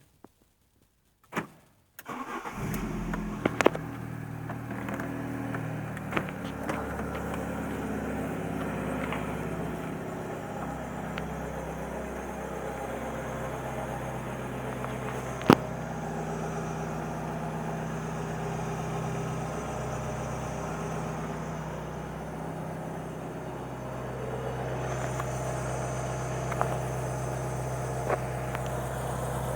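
Alfa Romeo 146 ti engine starting about two seconds in, then idling steadily, with a few sharp clicks along the way. The owner is investigating a strange whistle from this car.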